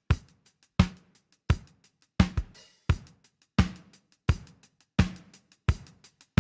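Drum kit playing a steady beat on its own, with a strong kick or snare hit about every 0.7 s and light hi-hat ticks between them.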